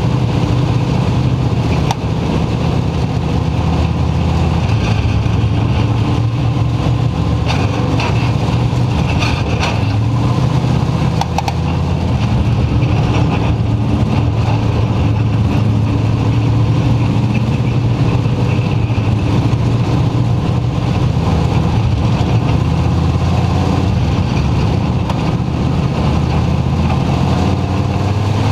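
A dirt oval race car's engine running hard at racing speed, heard from inside the cockpit, its pitch rising and falling as the car goes around the track.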